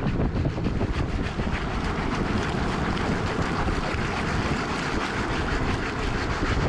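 Wind buffeting the microphone over surf, a steady rushing noise with a rumbling low end.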